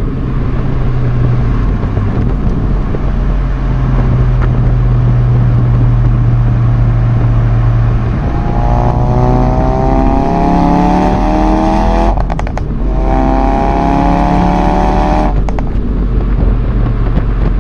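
Ford Focus RS Mk3's turbocharged 2.3-litre four-cylinder engine cruising at a steady hum, then accelerating hard about eight seconds in with a rising engine note. Around twelve seconds in the note breaks off with a few sharp cracks from the exhaust at an upshift, then climbs again through the next gear before the driver lifts off with more cracks.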